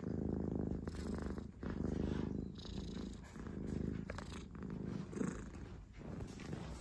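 Domestic cat purring close up, the purr swelling and fading with each breath, about one cycle a second.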